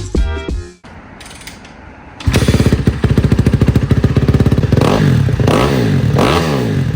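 Motorcycle engine starting up suddenly about two seconds in and running with a fast, rapid pulse. Near the end it is revved up and down three times.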